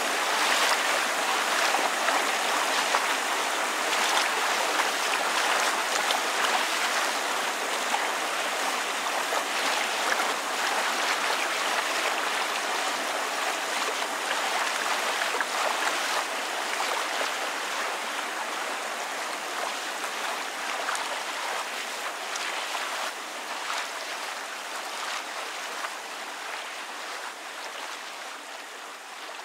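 Water lapping with rain falling: a steady wash of small splashes and drops that grows gradually quieter.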